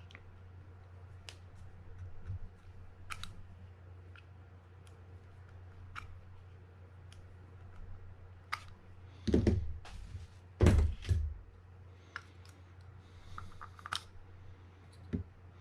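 Small metal fishing-reel parts being handled as the right-side bearing and gear are worked out of the reel housing: scattered light clicks, with a few louder knocks about nine, eleven and fifteen seconds in, over a steady low hum.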